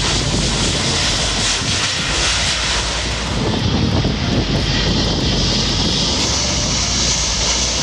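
Steady jet engine noise from airliners on the runway: first a United A320's IAE V2500 turbofans, then, after a change about three seconds in, an American Airlines Boeing 787-9's GEnx turbofans.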